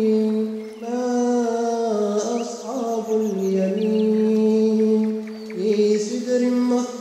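Male voice reciting the Quran in melodic tajweed style, drawing out long held notes that turn slowly in pitch, with brief breaths between phrases.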